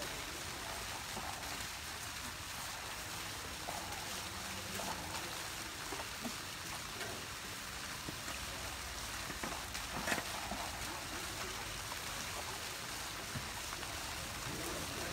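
Steady hiss of water at an open-air bathing pool, with one sharp knock about ten seconds in.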